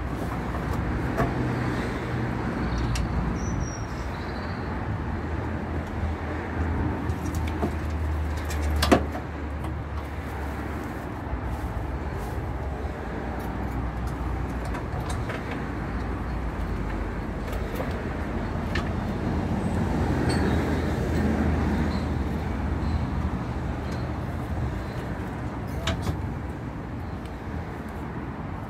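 Road traffic with a steady low engine hum that swells about twenty seconds in. A few sharp clicks sound over it, the loudest about nine seconds in.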